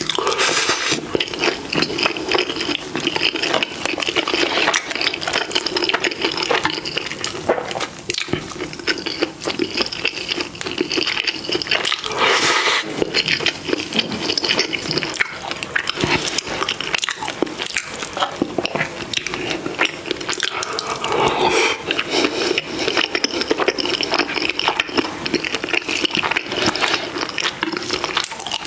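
Close-miked eating: wet chewing, smacking and biting of food, a steady stream of small moist clicks with no pauses.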